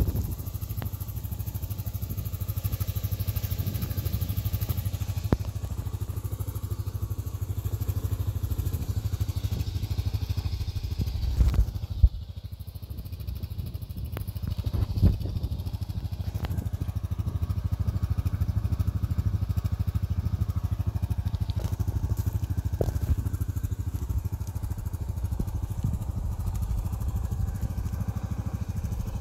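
Yamaha Grizzly 700 ATV's single-cylinder engine idling steadily, with a few brief knocks and clatters along the way.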